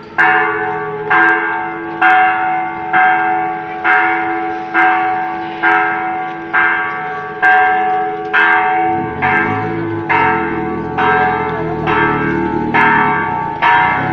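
A church bell tolling steadily, struck a little faster than once a second, each stroke ringing on into the next. A low rumble joins underneath in the second half.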